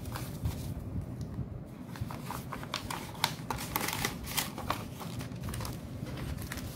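Paper banknotes and envelopes being handled: dry rustling with quick, crisp flicks of paper, thickest from about two to four and a half seconds in.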